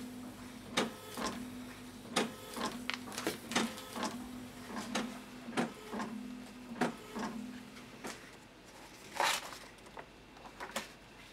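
Canon BJC-5500 bubble jet printer printing: a steady motor hum with a run of clicks and knocks from the print head and paper feed, which stops about eight seconds in. About nine seconds in there is a short rustle, and near the end a few clicks as the printed sheet is pulled out.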